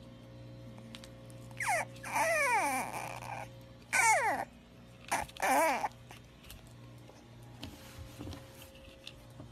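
French bulldog puppy crying out in a series of four or five high whining cries that slide down in pitch. They fall between about a second and a half and six seconds in, and the longest lasts over a second.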